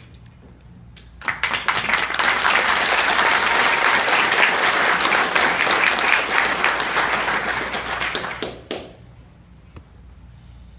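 Audience applauding: a dense burst of clapping that starts suddenly about a second in, holds for about seven seconds, and dies away near the end.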